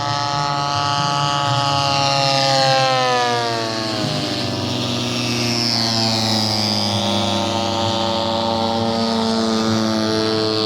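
Radio-controlled model airplane engine and propeller running steadily. Its pitch drops over about two seconds as the plane passes by, then holds level.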